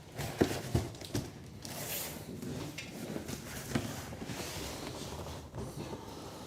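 Cardboard packaging being handled: rustling and rubbing, with a few light knocks in the first second or so and another about four seconds in.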